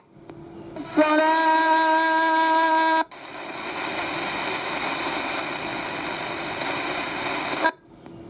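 Souness SNI-F100 portable radio being tuned across the FM band through its loudspeaker: a rising hiss, then a steady buzzing, horn-like tone for about two seconds, then static hiss between stations. Each change comes after an abrupt brief mute, the way the reviewer takes to mean a DSP tuner rather than an analogue one.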